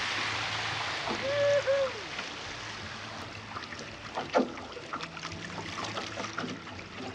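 Rushing water of a small rapid around a canoe, easing off as the canoe glides out onto flat water, with paddle strokes splashing and knocking; one sharp knock a little past halfway. A short two-note pitched sound about a second in is the loudest thing.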